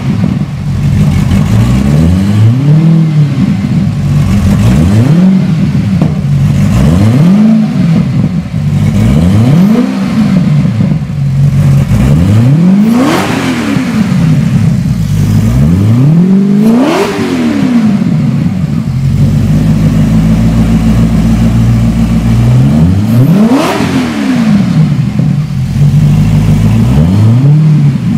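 Maserati 4.7-litre V8 in a Lazareth LM847 motorcycle idling and being revved by hand about eight times, each blip rising in pitch and dropping back to idle. A longer steady idle falls in the second half.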